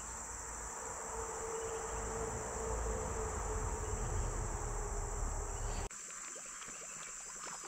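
Steady high-pitched chorus of insects, with a low rumble under it that drops away about six seconds in.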